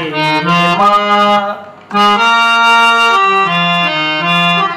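Harmonium reeds sounding a slow devotional melody one held note at a time, stepping up and down between notes, with a short break a little under two seconds in.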